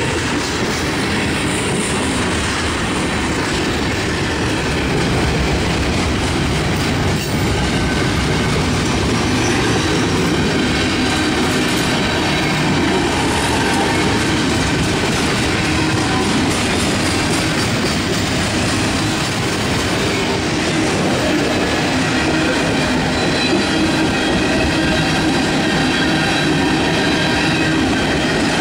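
CSX mixed manifest freight train rolling past at close range: a loud, steady rolling rumble of the cars with wheels clattering on the rails, a little louder from about five seconds in.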